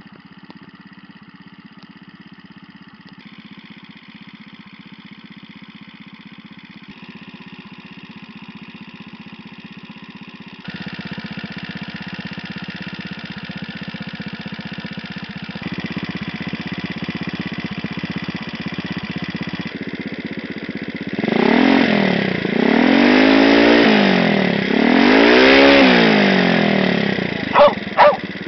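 Small Chinese 70 cc four-stroke scooter engine running through a LeoVince aftermarket exhaust. It idles steadily and grows louder in steps, then is revved up and let fall back three times near the end. A dog barks twice just before the close.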